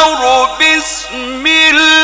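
Male Quran reciter drawing out a long melismatic phrase of tajwid chanting. The voice dips about half a second in and climbs again near the end.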